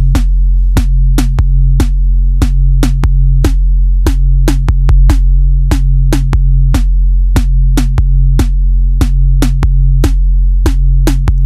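Electronic background music: a drum-machine beat of evenly spaced hits, about three a second, over a deep sustained bass.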